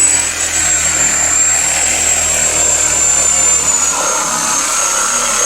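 Loud construction noise: a power tool running steadily with a high whine over a dense rushing noise, the whine dropping slightly in pitch about four seconds in.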